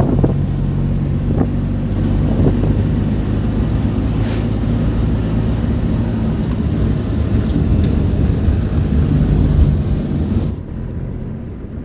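Tata Nano's two-cylinder petrol engine running steadily as the car is driven, heard from inside the car as a low hum. It runs smoothly without misfiring on cleaned and re-gapped spark plugs. The sound drops in level about ten seconds in.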